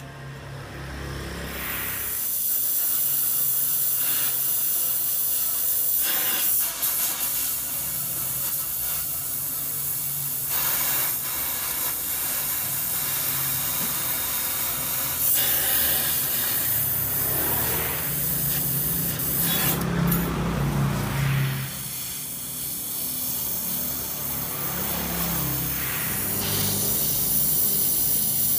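Electric stick welding of a motorcycle exhaust joint: the arc at the electrode tip sizzles steadily. It breaks off and restarts a few times.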